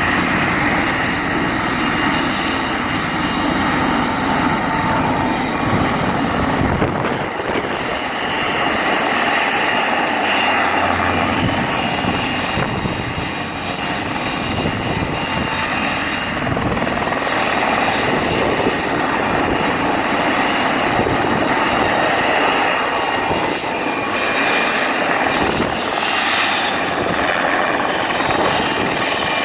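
Mosquito XET single-seat turbine helicopter in flight, its turbine and rotor running steadily with a constant high whine over a dense rush of noise.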